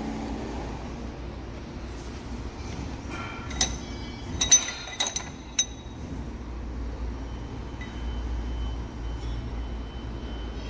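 Metal rods and tube offcuts clinking and ringing against each other as they are pulled from a scrap pile: a quick cluster of about five or six bright clinks around the middle, over a steady low hum.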